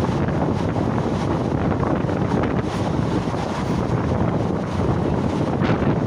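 Wind buffeting the microphone over the steady running noise of a passenger train, heard from the open doorway of a moving coach.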